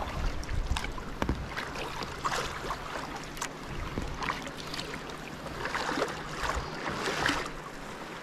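Kayak paddle strokes in choppy sea water: the blades dip, pull and lift out in turn, with splashing and dripping at each stroke, over wind rumble on the microphone.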